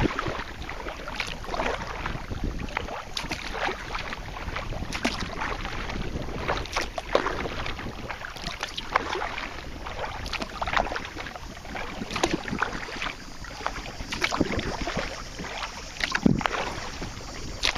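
Kayak paddle dipping and splashing in the water, a stroke every second or two at an uneven pace, over steady wind noise on the microphone.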